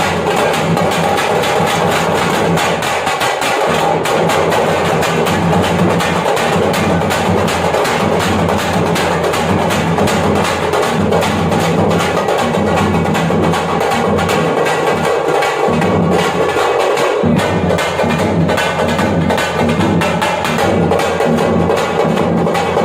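Parai frame drums beaten fast with sticks in a thappattam ensemble: a dense, continuous, loud drumming rhythm of rapid strikes.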